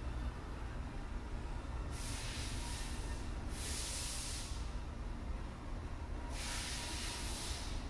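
Three short bursts of hissing, each about a second long, over a steady low hum.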